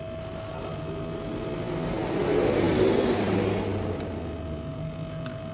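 A passing vehicle: its noise swells to a peak about three seconds in and then fades, over a steady faint hum.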